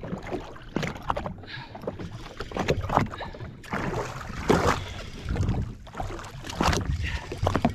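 Water slapping and splashing in irregular bursts against the hull of a jet ski drifting at sea.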